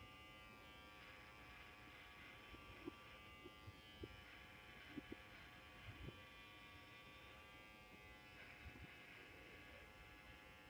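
Electric shaver buzzing faintly and steadily as it is run over a beard, its pitch wavering slightly, with a few soft clicks and taps.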